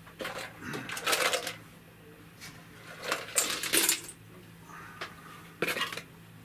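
Several short clattering and rustling noises of small objects being handled and moved about on a cluttered workbench, as a plastic mixing cup is fetched.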